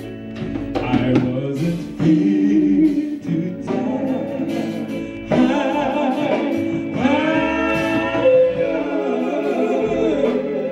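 Male gospel quartet singing live: a lead voice sings phrase after phrase over the group's harmonies, with electric guitar backing.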